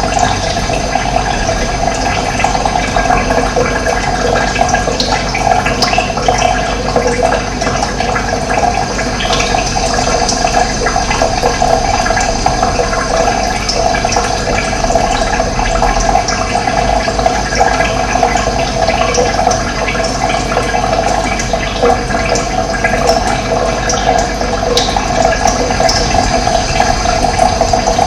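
Running water flowing steadily, a continuous close gurgling rush with no let-up.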